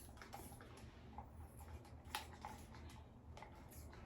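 Near silence with a few faint, scattered clicks and handling noises from a continuous-mist spray bottle being handled, before it is sprayed.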